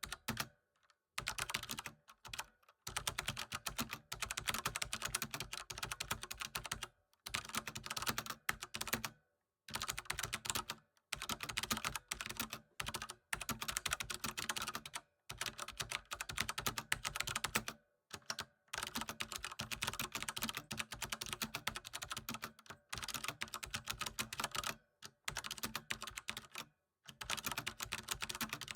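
Computer keyboard typing: fast runs of key clicks lasting a few seconds each, broken by brief pauses.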